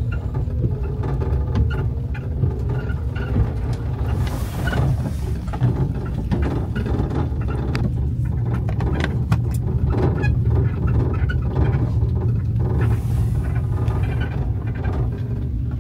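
Inside the cab of a Winnebago Ekko camper van driving slowly: a steady low rumble of engine and tyres, with frequent light clicks and rattles.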